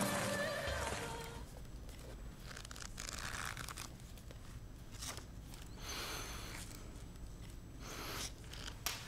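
Paper rustling from a paperback book being handled close up: a few short, soft bursts, with a sharper one near the end.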